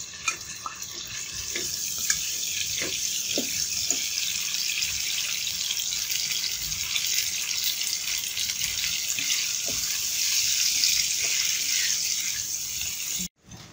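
Small shrimp sizzling as they fry in hot oil in a frying pan, a steady hiss that builds over the first couple of seconds. A few light knocks of the spatula come in the first few seconds, and the sizzle cuts off suddenly near the end.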